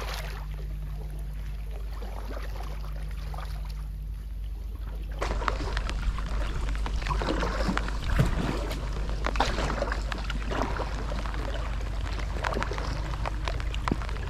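Packraft paddling on flood water: the paddle blades dip and splash and water drips, over a steady low rumble. About five seconds in, the splashes grow louder and more frequent.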